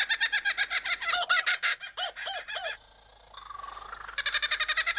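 Male superb lyrebird singing its mimicked song: fast runs of repeated chattering notes copying the laughing call of a kookaburra. Near the middle they break off briefly for a drawn-out whistle before the rapid notes resume.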